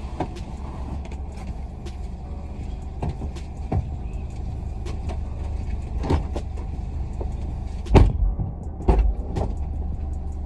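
Car engine idling with a steady low hum, over which several knocks and clicks of things being handled sound, the loudest about eight seconds in and again about a second later.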